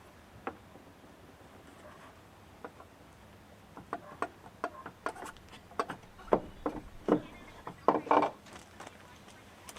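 Irregular clicks and knocks of car parts and tools being handled during engine-bay work, a few at first and then a quick cluster about halfway through.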